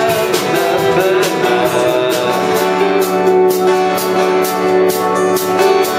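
Live band music: guitar over sustained keyboard chords, with drums keeping a steady beat.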